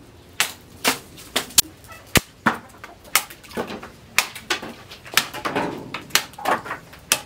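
A small hand-forged knife, made from a disc brake rotor, chopping repeatedly into a sugarcane stalk: a string of sharp chops and cracks about two a second, the crispest a little after two seconds in.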